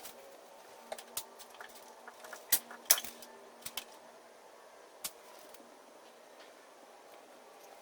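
Scattered light clicks and taps of hands handling small hard parts and tools while fitting a van window's seal, the sharpest about two and a half and three seconds in, over a faint steady hum.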